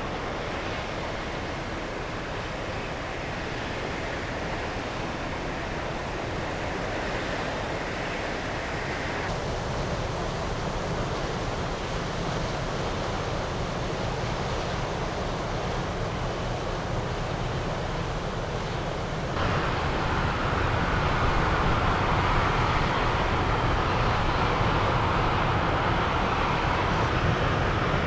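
Wind on the microphone over the low rumble of a passing cargo ship's engine, growing steadily louder. The whole sound gets suddenly louder about two-thirds of the way through.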